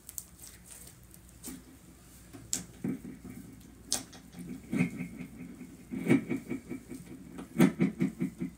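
Slime being kneaded, squeezed and stretched by hand, giving quick runs of sticky pops and squelches, with a few sharp clicks near the start.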